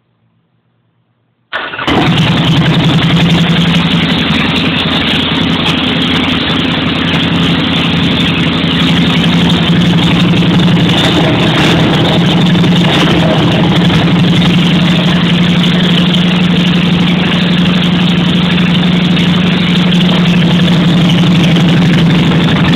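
Harley-Davidson Sportster 883's air-cooled V-twin fires up about a second and a half in, then idles steadily, nasty loud, through open pipes that have had the mufflers cut off.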